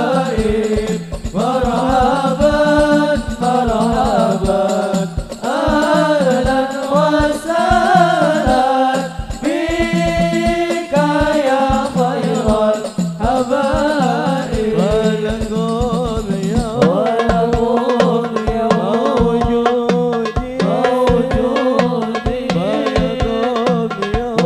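Sholawat (Islamic devotional song) sung in Arabic over steadily beating hadroh frame drums, the melody rising and falling in long sung phrases.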